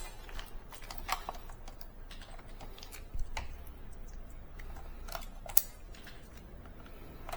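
Scattered light clicks and taps from parts being handled during hands-on printer repair work, a few at a time with pauses between, over a low steady room hum.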